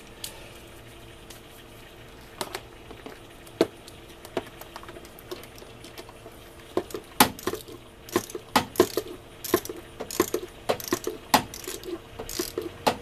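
Hand socket ratchet clicking in short irregular runs, with scattered clinks of metal tools, as bolts are run in on the engine. The clicks are sparse at first and come much more often from about halfway through.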